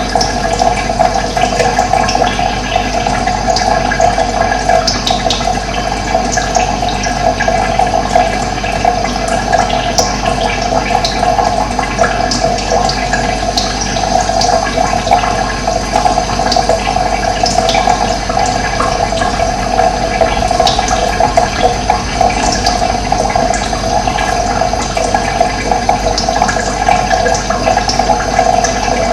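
Steady rush of running water, with scattered short, faint, high bird chirps over it.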